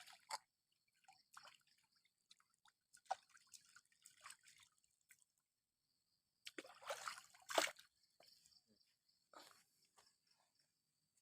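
Water dripping, trickling and sloshing in short scattered splashes, the loudest cluster about six and a half to eight seconds in, over a faint steady high-pitched buzz.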